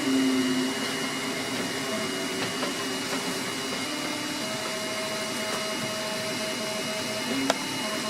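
3D printer at work: a steady fan hiss and hum under stepper-motor tones that shift in pitch and start and stop as the print head moves, with one sharp click near the end.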